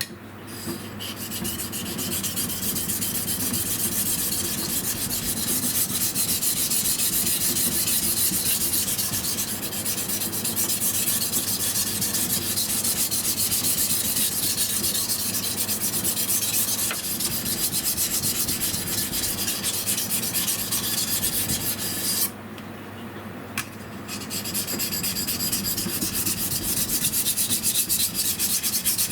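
Kitchen knife edge being sharpened on a Shapton Kuromaku #1000 medium whetstone: steel rasping across the stone in rapid repeated strokes. There is a brief pause with a small click a little over two-thirds through, then the strokes resume.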